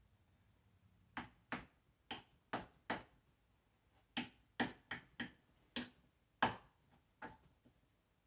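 Small hammer tapping tacks in two runs of light, sharp strikes: five taps, a pause of about a second, then seven more.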